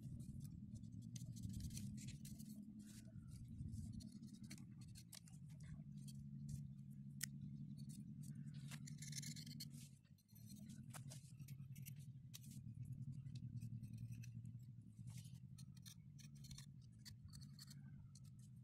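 Knife blade scraping and cutting the bark off a young pear tree's stem to strip a ring of it, a quick string of faint scratchy clicks over a steady low hum.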